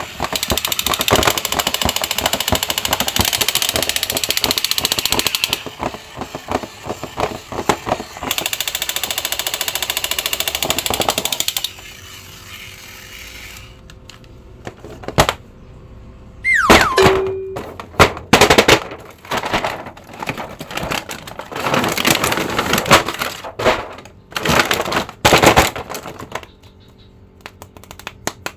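Plastic Captain America action-figure toy giving a loud, rapid clicking rattle for about the first twelve seconds, then plastic action figures being handled and knocked together on a table, with a brief falling squeak about seventeen seconds in.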